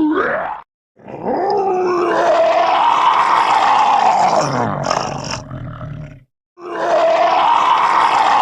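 A person's voice imitating Totoro's roar. A short call is followed by a long drawn-out roar of about five seconds that rises and then falls in pitch, and another roar starts near the end.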